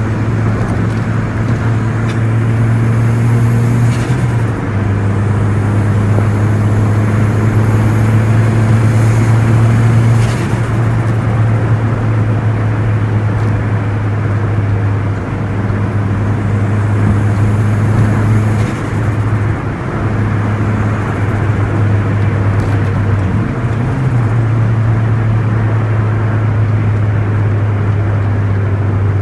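Turbocharged Perodua Myvi 1.3's four-cylinder engine pulling under light throttle on the move: a steady low drone over road noise, with a faint rising whistle in the first ten seconds and a few brief dips where the throttle eases off.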